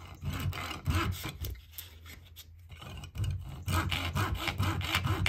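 Hacksaw cutting the bulky back piece of an illuminated ignition key ring in quick back-and-forth strokes, trimming it so it fits over the ignition cylinder. The strokes ease off briefly about two seconds in, then run steadily at about five a second.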